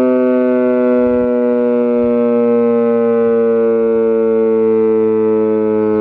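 E.D. Bullard Model 3H27 'Weltex' warning siren sounding its full alert: one loud, steady tone whose pitch sags slowly by a small amount.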